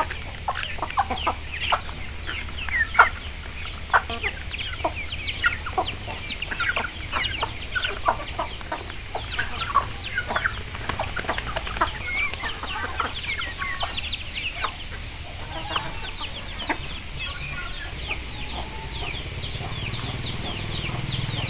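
Domestic chickens clucking and cheeping, a steady stream of many short quick calls, over a low steady rumble.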